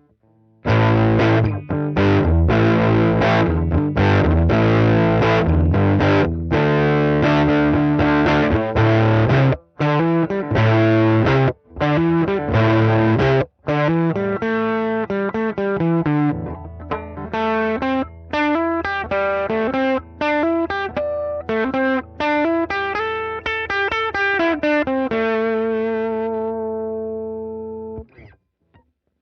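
Gibson Les Paul Tribute electric guitar played through a home-built one-knob fuzz pedal based on the Colorsound Fuzz, into an Atomic Amplifire modelling a Fender Deluxe Reverb. Distorted rhythm chords with short stops for about the first sixteen seconds give way to single-note lead lines with bends. It ends on a held note that fades and is cut off near the end.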